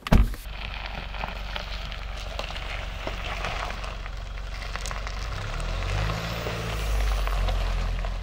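A door thuds shut right at the start, then the new Land Rover Defender pulls away over gravel: tyres crunching on the stones under a low engine rumble. Near the end the engine note rises as it accelerates.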